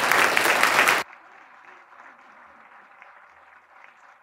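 Audience applauding, cut off abruptly about a second in, leaving only faint room murmur.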